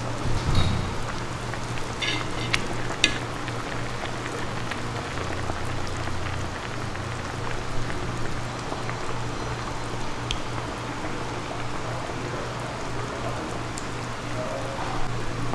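Broth boiling in a hot pot: a steady bubbling hiss over a low steady hum, with a few light clicks in the first few seconds.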